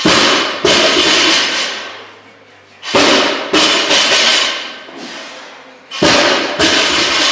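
A loaded barbell dropped from the top of a deadlift onto a concrete floor, three times about three seconds apart. Each drop lands with a loud crash and a second bang as the bar bounces, and the plates ring out after.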